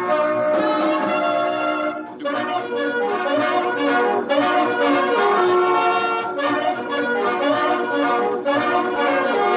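Dance band music led by brass and saxophones, a lively tune with a brief dip about two seconds in.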